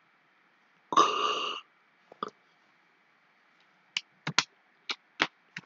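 Several sharp computer mouse clicks in quick succession over the last second and a half, with a single click a little after two seconds in. About a second in comes a brief harsh burst lasting about half a second, the loudest sound here.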